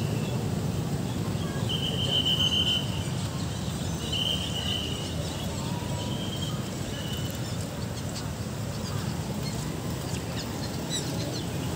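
Steady outdoor city background rumble, with a high, slightly trilling call sounding four times at the same pitch over a few seconds, the first note the longest and loudest.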